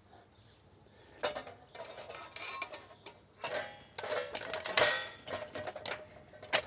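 Metal plates of a folding Skotti grill clinking and scraping as they are slotted together, a string of sharp metallic clicks and clanks with brief ringing, starting about a second in.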